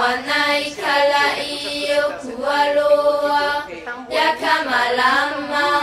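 Several people singing together without accompaniment, in long held, sliding notes.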